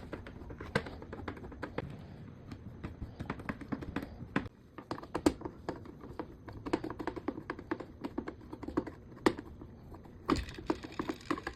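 Rapid, irregular light clicks and taps, many in close succession, over a low background noise that drops away about halfway through.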